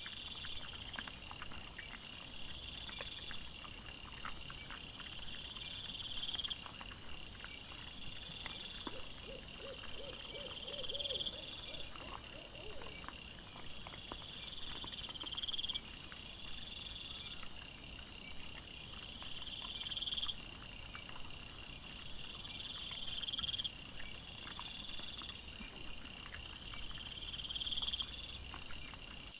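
Night insect chorus: a high, buzzing insect song that swells and stops in repeated phrases about every two seconds, over steadier high trilling. About nine seconds in, a brief run of low, rapid pulses.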